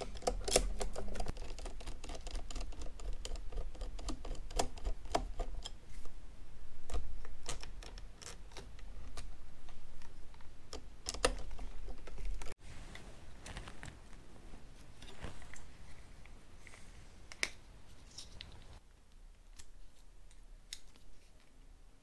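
Irregular small clicks and light clatter of hand tools and parts being handled during motorcycle wiring work. It cuts off abruptly about halfway through, after which the clicks are fainter and sparser.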